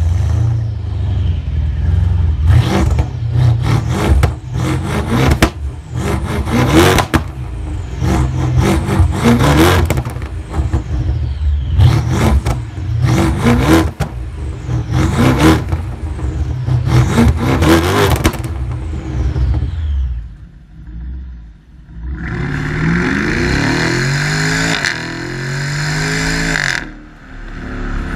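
BMW F10 550i xDrive's twin-turbo V8 through a catless Hamann/Supersprint exhaust, revved repeatedly in about ten blips, with sharp cracks and pops between them. Later, another BMW 550i V8 through a Meisterschaft exhaust revs up with a rising note.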